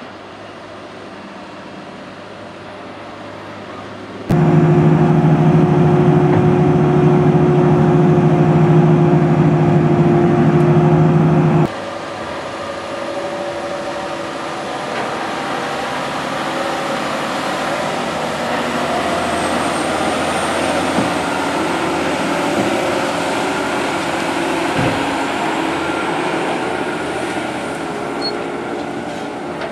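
Tractor engine and earthmoving machinery running as a large tracked tractor pulls a loading scraper. A much louder, steady droning stretch starts abruptly about four seconds in and cuts off just as suddenly near twelve seconds. After that the dense machine noise slowly grows a little louder.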